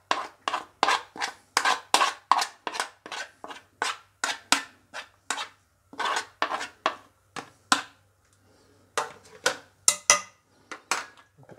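A teaspoon scraping grated lemon zest off a small plastic dish into a mixing bowl: quick, short scrapes, about three a second, with a brief pause about two-thirds of the way through.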